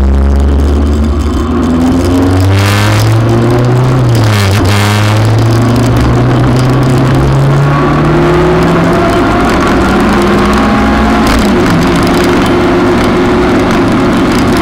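Motorcycle engine accelerating hard, rising in pitch with a quick upshift about four seconds in and another around eight seconds, then holding a steadier cruise. Wind rushes over it.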